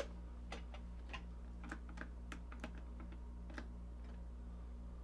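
Light, irregular clicks and taps of small hardware and hand tools being handled during assembly, over a steady low hum.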